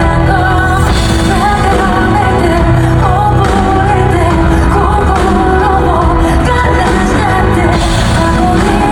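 Live pop song played loud by a full band, with a woman singing a wavering melody over it.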